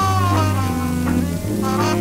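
Instrumental jazz music. A horn holds a long note over a steady bass line, and quicker, shorter notes start near the end.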